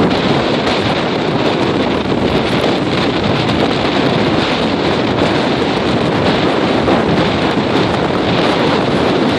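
Loud, steady gale-force wind buffeting the microphone, with waves breaking and surging underneath.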